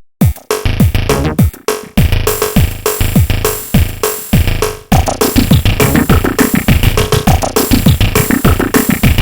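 A Samsung SGH-D520 ringtone: an electronic synthesizer tune over a drum machine beat. It starts right after a brief silence, and its kick drums drop in pitch, with a short break a little before the middle.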